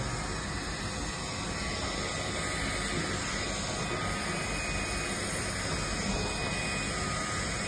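Vacuum cleaner running steadily, a constant rushing noise of air drawn through the pet-grooming attachment's duct.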